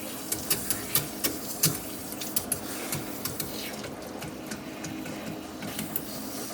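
Water dripping and spitting from a leaking pipe fitting, irregular sharp ticks several a second that thin out after about three seconds, over a steady low hum. The leak is at the top of the joint, which is not yet tight enough.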